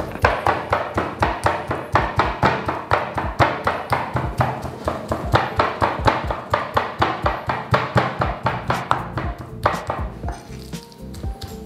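Cleaver chopping raw chicken thigh meat on a wooden chopping block: a fast, even run of strikes at about four a second, mincing the meat by hand, thinning to a few scattered chops near the end.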